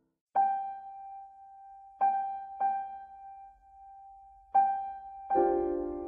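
Background piano music: a single high note struck four times, each ringing away, then joined by a fuller chord near the end.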